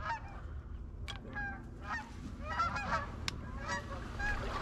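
A flock of geese calling in flight: many short honks overlapping one another, coming thick and fast.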